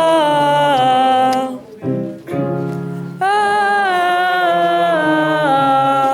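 Music with singing: held notes stepping down in pitch in two phrases, with a short break about two seconds in. The sound cuts in abruptly at the start.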